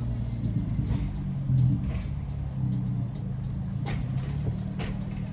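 Nissan Sentra B17 with a straight-piped HKS exhaust running at low revs, a steady deep exhaust drone heard from inside the cabin, swelling briefly about a second and a half in. Music from the car stereo plays underneath, and two sharp clicks come near the end.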